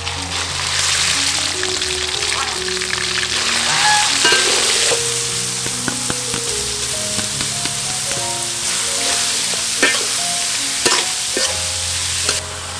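Pork and shrimp with minced garlic sizzling as they are stir-fried in a hot oiled steel wok, with a few sharp clicks of the metal spatula against the pan. Soft background music plays under it. The sizzling cuts off suddenly just before the end.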